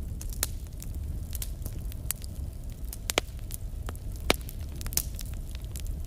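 Fire crackling: irregular sharp pops and snaps, a few louder ones past the middle, over a low steady rumble of flame.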